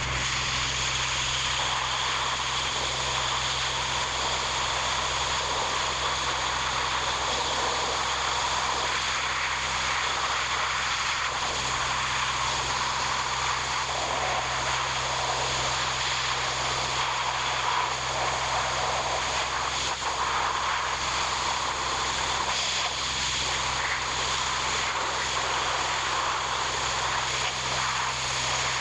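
An engine running steadily at a constant speed, with a strong hiss over a low, even hum.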